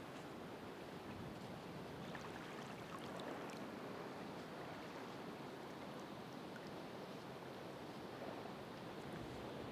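Ocean waves washing on the shore, a steady rush that swells and eases slowly, with faint fizzing ticks of water.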